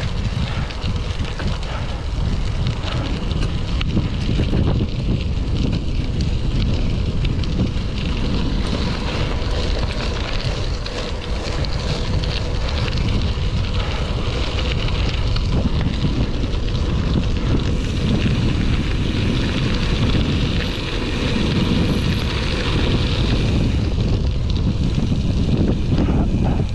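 Wind buffeting the microphone of a moving bicycle, a steady low rumble with a hiss above it.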